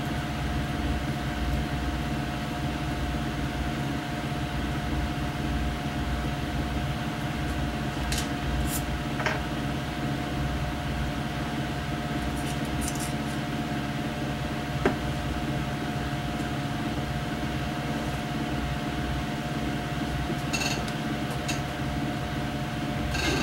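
Steady hum of an electric fan running, with a few light clicks and clinks as small engine parts of the carburetor linkage are handled.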